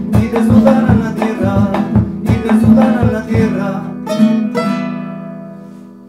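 Two acoustic guitars strumming in a bambuco rhythm, then closing on a final strummed chord that rings out and slowly fades.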